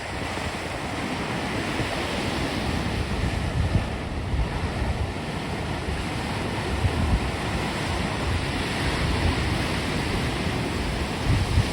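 Storm waves breaking in a continuous rush of surf, with strong wind gusting on the microphone.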